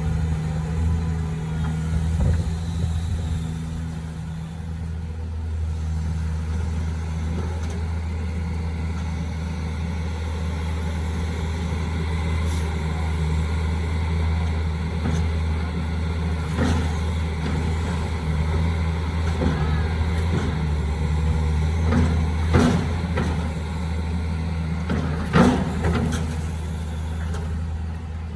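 Heavy construction machine's engine running steadily with a low hum, with a few sharp knocks and clanks in the second half.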